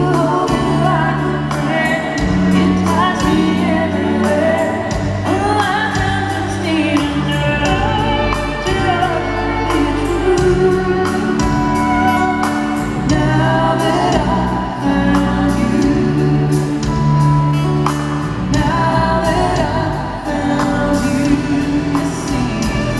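A woman singing country music live into a microphone, accompanying herself on a strummed acoustic guitar.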